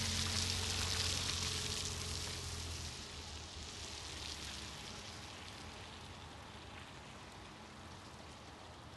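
Car engine humming and tyres hissing on a wet road, the hum stopping about three seconds in. A steady wet hiss then fades slowly.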